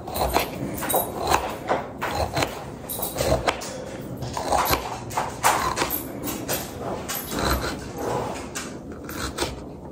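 Kitchen knife chopping red onion on a cutting board: quick, irregular knocks of the blade striking the board, a few each second.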